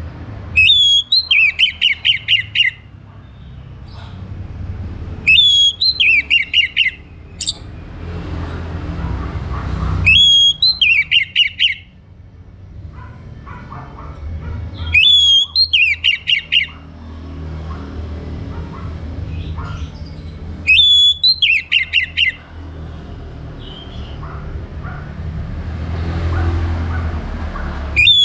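Orange-headed thrush singing: the same short phrase five times, each a rising whistle followed by a quick run of falling notes, about two seconds long and repeated every five to seven seconds, with another starting at the very end. A steady low rumble runs underneath.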